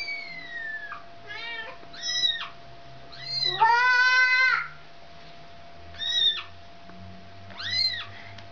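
A cat meowing about seven times: short, high calls, some falling or arching in pitch, with one longer meow about four seconds in.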